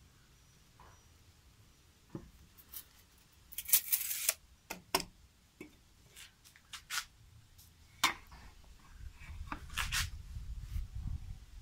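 Handling sounds of measuring tools on a wooden tabletop: a brief scraping rush and sharp clicks and knocks as a tape measure is cleared away and a ruler is laid down, with a low rumble near the end as the pencil is set to the ruler.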